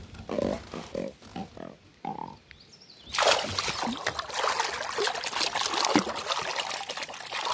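Blue catfish held by the lower lip at the water's surface: a few short low croaks in the first two seconds, then, from about three seconds in, continuous splashing and churning water as the fish thrashes.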